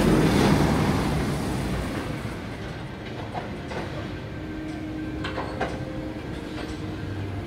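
Steel roller coaster train rumbling along its track, loudest in the first second and then fading away, followed by a few sharp clicks and clanks from the ride.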